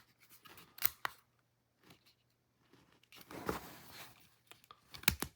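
A plastic backstrap being fitted onto an airsoft pistol's polymer grip and its pin pushed in. There are a few light clicks, a short rubbing scrape about three seconds in, and two sharp clicks near the end.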